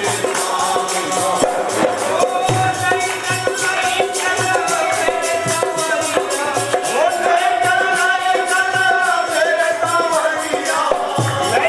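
Himachali bhajan kirtan music without singing: a sustained melody over a fast, steady jingling rhythm and regular drum beats.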